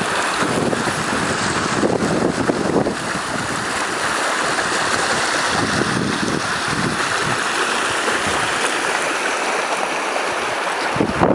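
Storm floodwater rushing steadily, with gusts of wind on the microphone.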